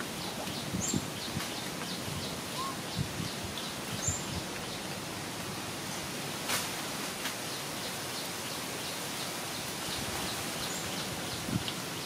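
Steady outdoor background hiss with scattered short, high chirps, a few of them standing out about a second in, around four seconds in and near the end. Soft rustles and low taps come from a troop of long-tailed macaques moving about on sandy ground.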